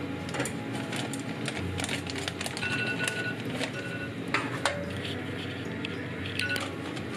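Rice cooker's electronic chime beeping to signal that the rice is done: one longer beep about two and a half seconds in, then two short beeps later. Light clicks and clinks run under it, with a sharper click just after the middle.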